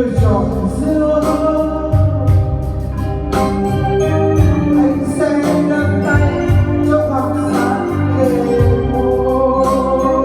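Instrumental break of a slow ballad: an electronic keyboard plays a held, organ-like melody over bass and a steady drum beat.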